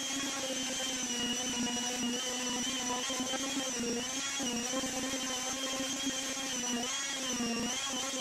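Electric palm sander running steadily as it sands cured epoxy drips off a fiberglass surface, its whine wavering slightly in pitch.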